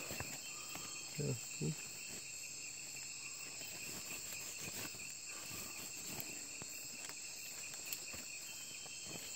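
Steady chorus of night insects, several high trilling tones sounding at once without a break.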